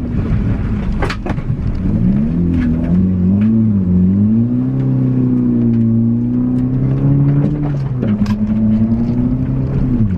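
Car engine revving up and down as the car is thrown around a rough dirt track, with the revs dropping and climbing again. A few sharp knocks come through, about a second in and again later.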